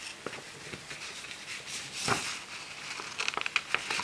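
A sheet of printed paper rustling and crinkling as it is handled, with a cluster of short scissor snips cutting into the paper near the end.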